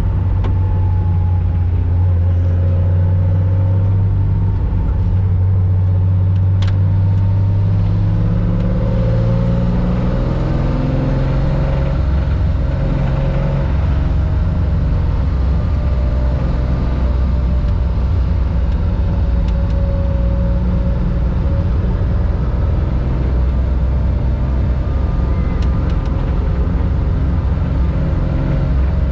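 Air-cooled flat-six engine of a 1965 Porsche 911 2.0, heard from inside the car, running at fairly steady revs with the pitch drifting slowly up and down. A single sharp click comes about seven seconds in.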